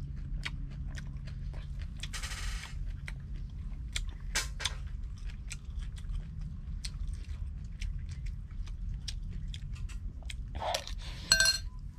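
Close-up chewing and crunching of crispy deep-fried mullet, a run of small crunches and mouth clicks. Near the end comes a brief, sharp ringing sound, the loudest moment.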